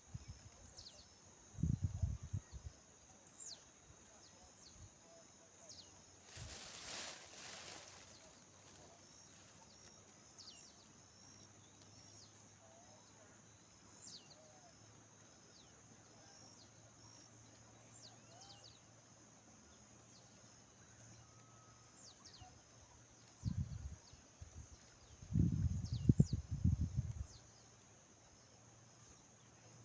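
Outdoor rural ambience: insects droning steadily at a high pitch, with many short falling bird chirps. Low rumbling bumps break in a couple of seconds in and again near the end, the loudest sounds here, with a brief rushing noise around the seventh second.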